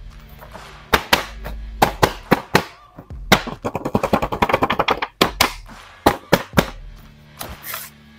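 Plastic blister packaging of a boxed action figure being handled and opened: a series of sharp crackles, taps and knocks, with a dense run of crinkling about three to five seconds in.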